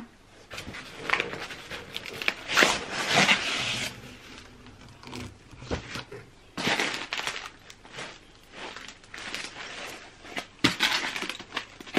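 Cardboard box being unpacked: the cardboard flaps rustle and styrofoam packing blocks scrape and rub as they are lifted out, in irregular bursts.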